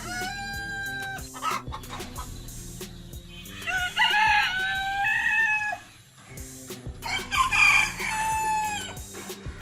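Roosters crowing: three long cock-a-doodle-doo crows, one at the start, a loud one in the middle and another near the end.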